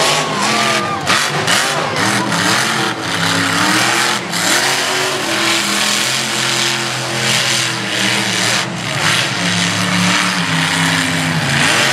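Monster truck engine revving hard, its pitch rising and falling again and again, with a few short drops as the throttle comes off.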